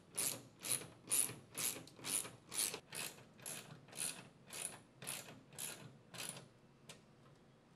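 Socket ratchet wrench clicking steadily, about two clicks a second, as it drives lag screws through a plastic dispenser back plate into the wall. The clicking stops about six and a half seconds in, with one last click shortly after.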